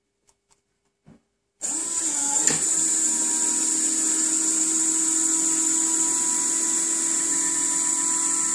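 Lado RS666 Jumbo electric retract actuator's motor whining steadily as it extends a 27 cm landing-gear leg carrying a 1.2 kg wheel. The motor starts about a second and a half in, after near silence.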